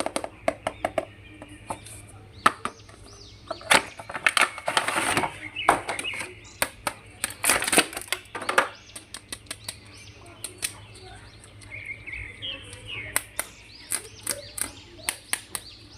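Plastic packaging crinkling and rustling, with many sharp plastic clicks and taps, as a toy action figure is unwrapped and handled. The loudest rustles come about four to five seconds in and again around eight seconds.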